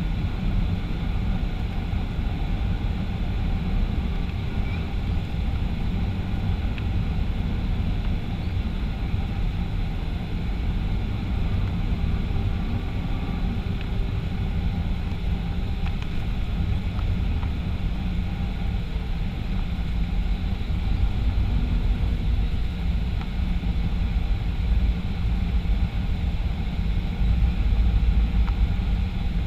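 Steady cabin noise of a Boeing 737-500 in flight: a constant low rumble of jet engines and airflow with a faint hum of steady tones, growing a little louder near the end.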